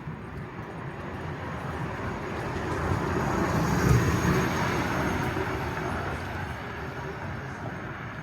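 A vehicle passing close by, growing louder to a peak about four seconds in and then fading away.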